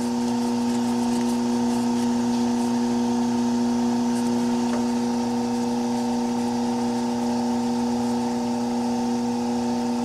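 Maggi 3/50 edgebander running with no panel in it: a steady motor hum made of several held tones, unchanging throughout.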